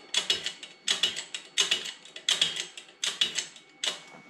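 Hand-pumped hydraulic shop press being worked in steady strokes, a burst of metallic clicking with each stroke, about six strokes at roughly one every 0.7 seconds.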